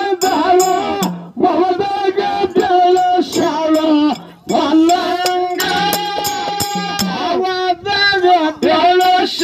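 Dollina pada, a Kannada folk song: a man sings long, high held phrases into a microphone, with light high percussion ticks behind the voice.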